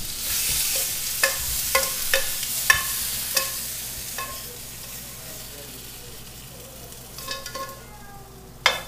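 Sunchokes sizzling in hot olive oil in a frying pan as they are tipped out onto a plate. The sizzle fades after the first few seconds, and metal tongs clink and scrape against the pan and the plate several times, loudest near the end.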